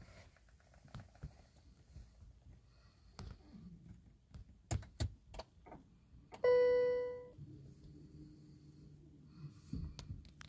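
Peugeot 3008 Hybrid switching on in the cabin: a few soft clicks, then a single ringing dashboard chime about six and a half seconds in that fades over about a second. A faint steady hum follows as the hybrid system reaches READY in electric mode, with no petrol engine running.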